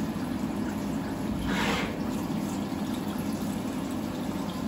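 Syil X7 CNC mill running an M3 tapping cycle in aluminium, its steady hum under the splash of flood coolant over the part. A brief louder hiss comes about a second and a half in.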